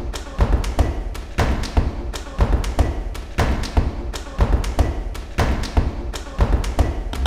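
A quick, uneven series of thumps and taps, about three a second.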